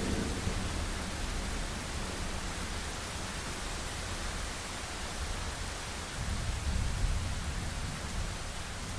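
Steady heavy rain hissing, with a low rumble of distant thunder that dies away at the start and swells again about six seconds in.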